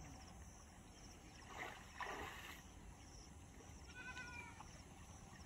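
Faint splashing of pond water, twice in quick succession around the middle, as a fishing net is drawn through the shallows. About four seconds in there is a short, high-pitched call.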